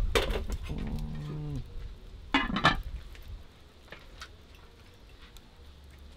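Lumps of charcoal clinking and knocking against a zinc sheet as they are settled on top of a pudding pan, the coal heat that bakes sweet potato pudding from above. There is a clatter at the start and a sharper pair of knocks about two and a half seconds in, then only a few faint ticks.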